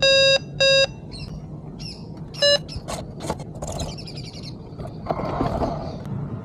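Loud electronic beeps at one steady pitch: two at the start and a short third about two and a half seconds in, with brief high chirping sounds between them.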